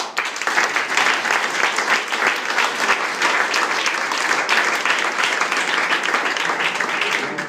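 Crowd applauding: many hands clapping together in a dense, steady patter that starts suddenly and dies away near the end.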